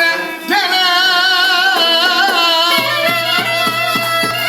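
Middle Eastern-style folk music: an ornamented melody with wavering vibrato, joined about three seconds in by a steady low drone and evenly spaced percussion beats.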